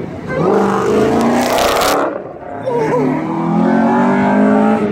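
A car accelerating hard away from the show: its engine revs climb, a brief loud hiss comes at about two seconds with a short dip, and the revs then climb again through the next gear.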